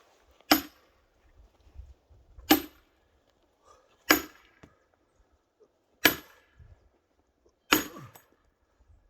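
Chopping blows into pine firewood, splitting logs: five sharp cracks, about one every one and a half to two seconds, each with a brief high metallic ring.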